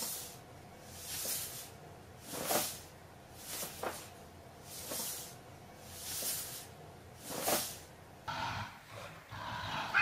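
Short breathy animal sounds, repeated about once every second and a bit. After about eight seconds a steadier hissing sound takes over.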